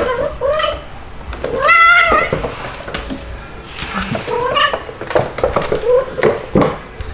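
A kitten mewing in repeated cries that bend up and down in pitch, with one long cry about two seconds in, during rough play-wrestling with an adult cat. A few sharp knocks come near the end.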